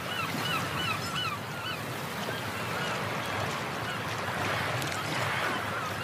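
Seaside ambience opening a music track: gulls calling in a quick series of short falling cries during the first two seconds, over a steady wash of sea waves.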